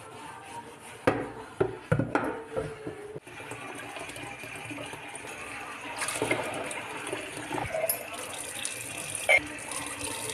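Dishwashing at a kitchen sink: a few clinks of dishes against the sink, then the tap running steadily over dishes being rinsed, louder from about six seconds in.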